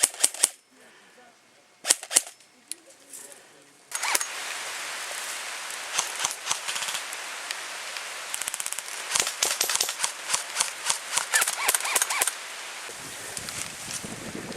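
Airsoft guns firing: scattered sharp single shots and short rapid bursts, including a quick run of evenly spaced shots about eight to nine seconds in.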